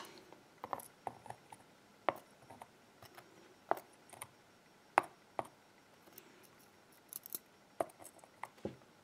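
Metal tweezers clicking and small lock springs tapping against a pin tray as they are picked up and set into its slots: a dozen or so light, sharp clicks at irregular intervals.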